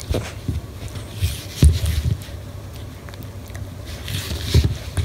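Corgi puppy scuffling on the floor as it tugs and chews a rubber-and-rope toy: irregular soft thumps and rustling, the strongest thump about a second and a half in.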